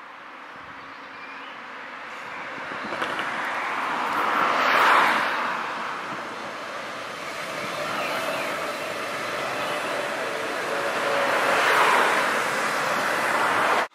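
Tatra KT4D tram running past on its track, wheels rumbling on the rails. The sound swells as it comes near, is loudest about five seconds in and again near the end as it passes, then cuts off suddenly.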